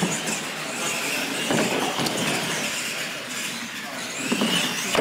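Electric R/C monster trucks racing over ramps on a hard floor: a motor whine that rises and falls with the throttle over tyre and drivetrain noise, with a couple of thumps as the trucks land off the jumps.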